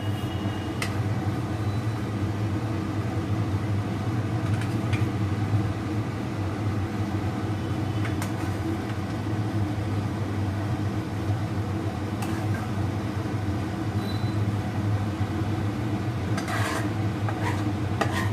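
A steady low hum throughout, with a few light clicks and scrapes of a metal spatula against a nonstick frying pan as brinjals and gravy are served onto a plate, a small cluster near the end.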